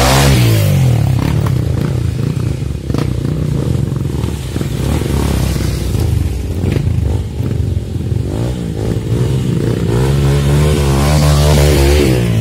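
Dirt bike engine revving hard, its pitch climbing and dropping. The engine runs choppier in the middle, with clattering, and revs up again about ten seconds in.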